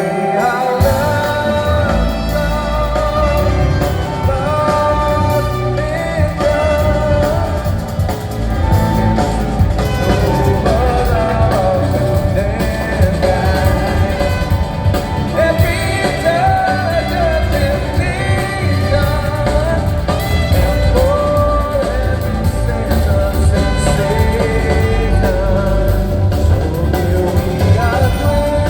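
Live band music: a wavering lead melody over a steady bass and drum backing, played through without a break.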